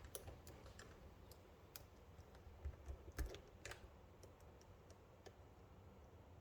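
Faint, scattered small clicks and taps of a lock pick and tension bar working the pins in the keyway of a Lockwood 334C45 padlock, with a few louder clicks and a soft knock around the middle.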